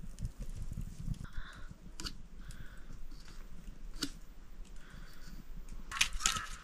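Animal calls: a few faint calls in the first seconds and a loud run of harsh, repeated calls near the end, with two sharp clicks in between.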